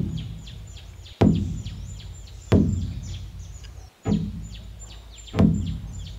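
A large drum struck slowly with a wooden stick, five heavy booming beats about a second and a quarter apart, each ringing down before the next. Birds chirp high in the background.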